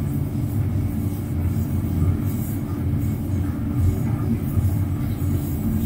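Hand-held gas torch burning steadily with its flame on a brass lattice panel: a loud, even, low rushing rumble.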